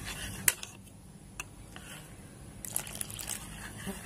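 Wire whisk beating a thick gram-flour and curd batter in a ceramic bowl: wet squishing with the whisk's wires clicking against the bowl, a sharp click about half a second in and a cluster of clicks near three seconds.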